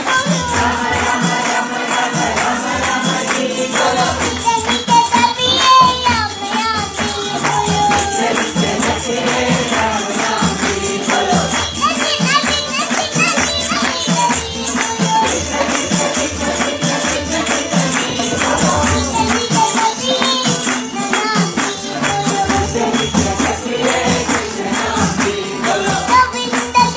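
A song: a child's singing voice over instrumental accompaniment, with a steady beat and jingling percussion.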